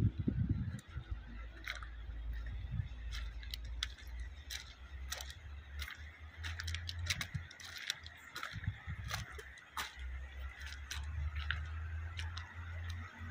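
Faint, distant low hum of a loaded Hino FM1J truck's diesel engine, after a heavier rumble dies away within the first second. Many irregular sharp clicks sound over the hum.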